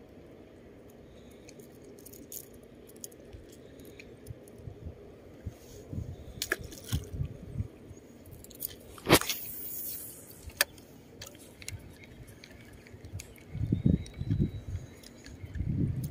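Fishing-tackle handling noises: faint clicks and rustles as a small fish is worked off a lure. About nine seconds in comes a sharp snap and a second of hiss, the cast with line paying out off the spinning reel, then a single click, and low muffled thumps near the end.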